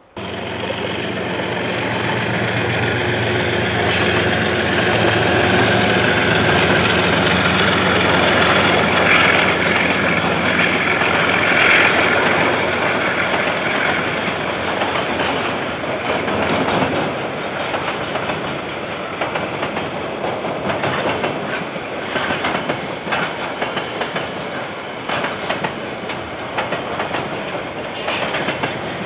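KiwiRail train passing close by, cutting in abruptly: the diesel locomotive's engine hum builds and is loudest about 8 to 14 seconds in, then the wagons roll past with a steady clickety-clack of wheels over the rail joints.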